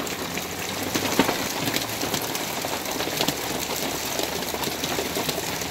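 Hailstorm: large hailstones, about golf-ball size, pelting down on the truck camper and the gravel around it. It is a steady, dense clatter of many small hits, like being pelted with rocks.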